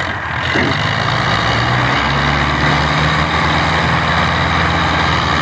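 Belarus tractor's diesel engine opened up to full throttle, revving up in the first half-second and then held at a steady high pitch. It is working under heavy load to drag a sugarcane-laden trolley stuck in soft, wet ground.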